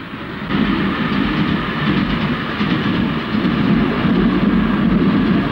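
A train of passenger coaches running past on the tracks, a steady noise that grows louder about half a second in and holds.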